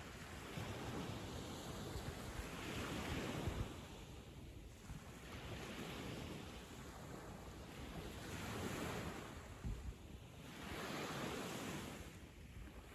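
Sea waves breaking and washing up on a sandy beach, the surf swelling and falling back every few seconds.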